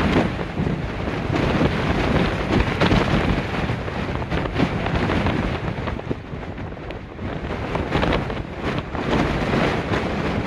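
Storm-force gale buffeting the microphone: a dense rushing wind noise that swells and eases in gusts, easing a little around the middle before building again near the end.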